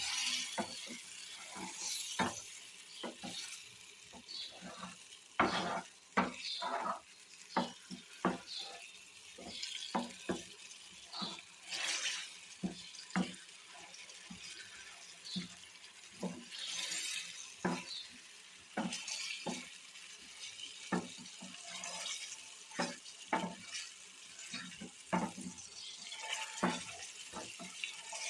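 Wooden spoon stirring chopped tomatoes in a small stainless steel pan, knocking and scraping against the pan at irregular intervals, over the sizzle of frying oil.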